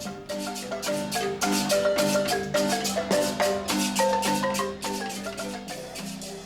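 Marimba music: a quick melody of mallet strokes on wooden bars over sustained low notes, fading near the end.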